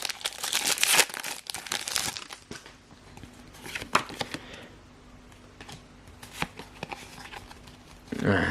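Foil Pokémon booster pack wrapper being torn open and crinkled, dense crackling for the first two seconds, then quieter card handling with a few soft clicks.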